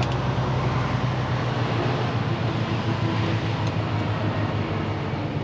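Semi truck's diesel engine running steadily, heard from inside the cab, with a low hum and a haze of road noise. The deepest part of the hum drops away about a second and a half in.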